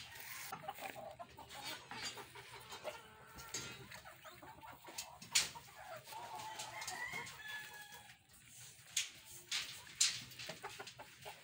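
Chickens clucking in the background, with a rooster crowing. A few sharp clicks or knocks, the loudest about five seconds in and again about ten seconds in.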